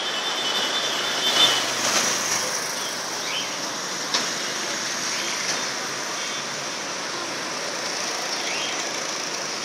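Steady road traffic noise, with engines and tyres of passing vehicles. A thin high squeal dies out about a second and a half in, and there is a single short tick about four seconds in.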